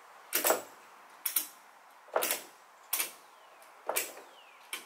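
Ratchet strap being cranked tight in six short ratcheting strokes about a second apart, tensioning the strap to pull bowed-out stud walls back together.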